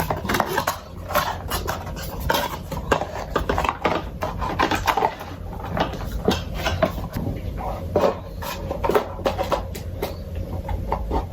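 Small hard plastic parts and packaging clicking, knocking and rustling irregularly as they are handled and packed back into a box, over a steady low hum.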